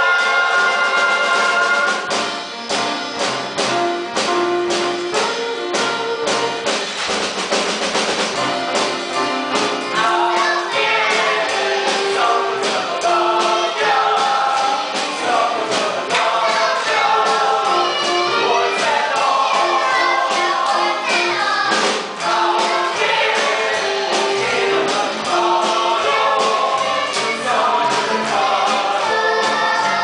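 A stage-musical ensemble sings in chorus over a live band, a lively song with a steady beat.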